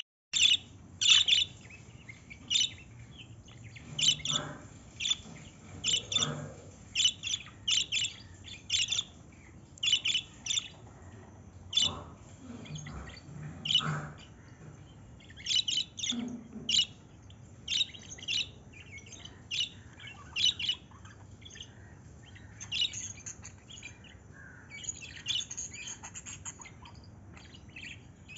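Pet lovebirds chirping, short shrill calls repeated every second or so.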